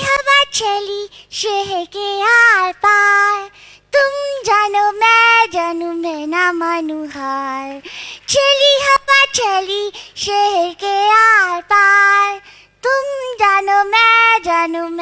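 A woman singing a tune in a high, childlike cartoon voice into a microphone, performing the voice of the cartoon character Noddy.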